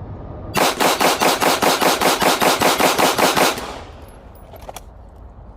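Glock 19 Gen 5 9mm pistol fired rapidly: a string of about fifteen shots at roughly five a second, lasting about three seconds, then the echo fades out.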